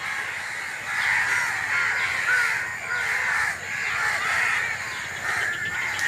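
A dense chorus of many birds calling at once, with short overlapping calls that keep up without a break.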